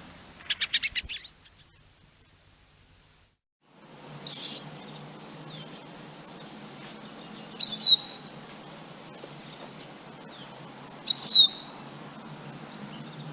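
Chaffinch calling: a quick run of high notes in the first second and a half. After a silent gap come three loud, short, downward-sliding call notes, evenly spaced about three and a half seconds apart.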